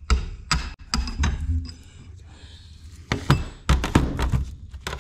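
Hammer striking steel parts of a hydraulic cylinder, a series of sharp metallic knocks and clinks in two bursts with a pause in the middle, tapping a part down into the cylinder.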